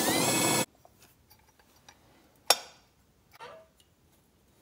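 A brief loud rushing burst at the very start, then one sharp metallic clink about two and a half seconds in and a fainter clatter a second later, as torque converter parts and tools are handled.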